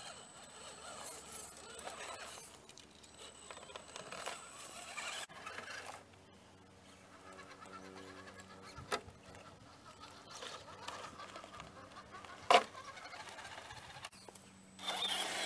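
Scale RC crawler trucks on SCX10-type chassis running at crawl speed, their electric motors and gear drivetrains giving a faint steady whine as the tyres work over rock and dirt, with a small click about nine seconds in and a sharp knock about twelve and a half seconds in.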